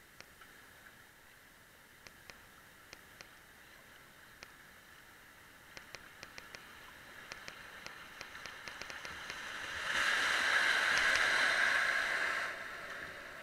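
Rushing white water as a kayak runs a small river rapid, loud for about two and a half seconds near the end and then dropping away quickly. Before it there is a low wash of flowing water with scattered sharp clicks, which come more often as the rapid nears.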